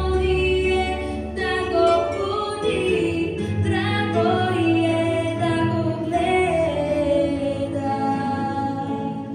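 Teenage girl singing a song solo over sustained instrumental backing.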